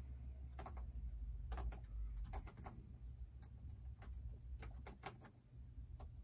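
Typing on a Dell laptop keyboard: scattered, irregular keystroke clicks over a low steady hum.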